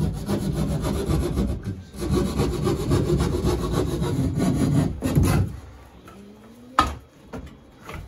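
Wood being sawn with steady back-and-forth scraping strokes for about five seconds, easing briefly near two seconds, probably cutting backing board for the new range hood mount. A single sharp knock comes near the end.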